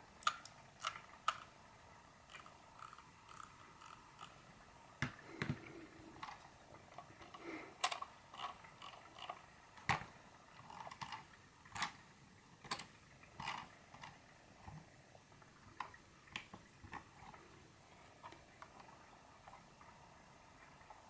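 Computer mouse scroll wheel and middle button being worked, giving irregular sharp clicks, one or two a second, with faint smaller ticks between them.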